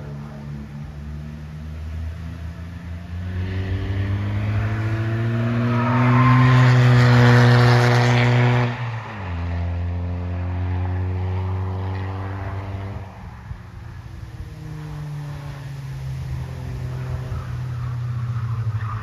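Race cars running on a circuit. One engine pulls up through the revs and is loudest about six to eight seconds in, then its pitch drops abruptly near nine seconds. Another engine keeps running at a lower pitch, and a further engine builds toward the end.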